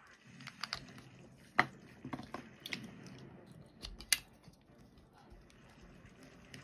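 A string of sharp clicks and taps from small hard objects handled on a craft table, about eight in all, the loudest about one and a half seconds in and again about four seconds in.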